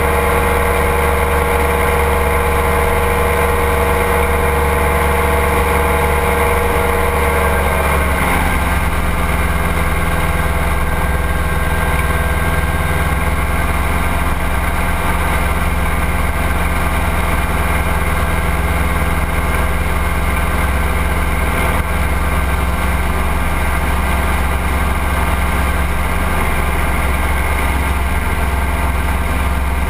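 Ultralight trike's engine and propeller droning steadily in flight, with a heavy rumble of wind over the wing-mounted camera. About eight seconds in the engine note drops slightly in pitch and then holds steady.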